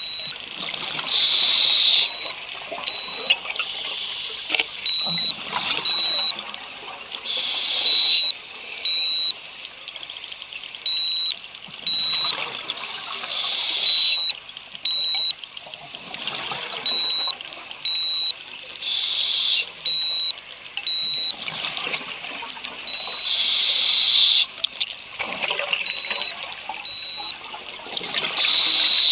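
Scuba diver breathing through a regulator underwater: a loud burst of exhaust bubbles every five to six seconds, with quieter inhalation rushes in between. A dive computer alarm beeps in sets of three short, high beeps every three seconds.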